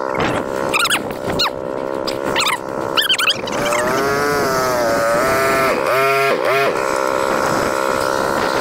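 ATV engines idling steadily, with a whine that wavers up and down in pitch for a few seconds midway.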